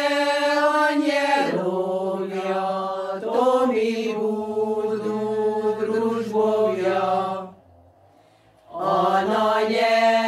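Women's choir singing a Slovak folk song unaccompanied, in long held notes that step down in pitch. The song ends about seven and a half seconds in, and after a pause of about a second the choir starts the next song.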